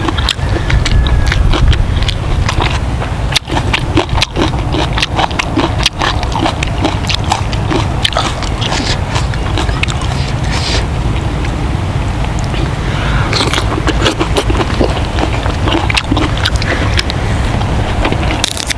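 Close chewing and mouth sounds of a man eating grilled fish and sticky rice, picked up by a lapel microphone, with many small clicks and crackles over a steady low rumble.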